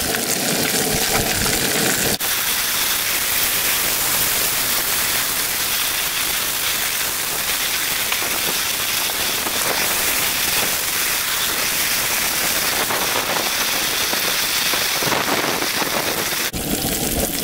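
Shake 'n Bake-coated brook trout fillets frying in a cast-iron skillet on a camp stove: a steady, dense sizzle of hot fat.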